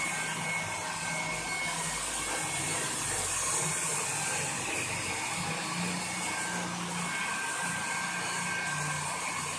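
Hair dryer running steadily: an even rush of blown air with a few faint steady tones.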